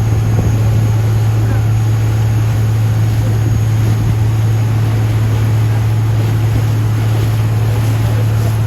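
Boat engine running at a steady drone, with wind and water rushing past.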